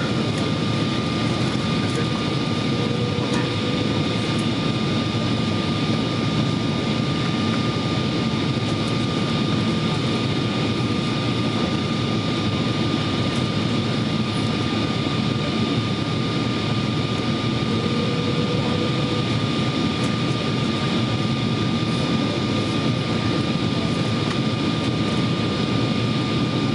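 Cabin noise inside a Boeing 777-200 on descent: a constant rush of airflow and jet engine noise with a thin, steady whine.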